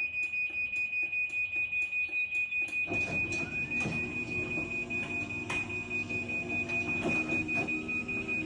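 Chamberlain B970 belt-drive garage door opener beeping rapidly as its warning that the door is being closed from the phone app. About three seconds in, the motor starts with a low hum and the door begins moving, with a few clunks, while the beeping carries on.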